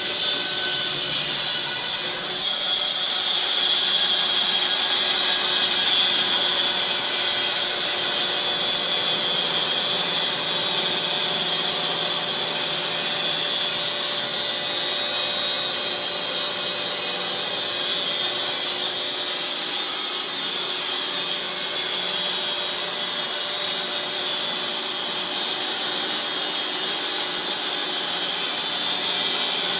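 Puma EA band sawmill cutting wood, its blade running steadily through the cut with a loud, mostly high-pitched noise that does not let up.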